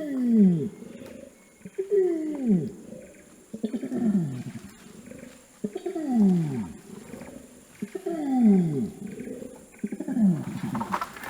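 Adult male orangutan's long call: a series of deep calls, each sliding down in pitch, about one every two seconds, six in all.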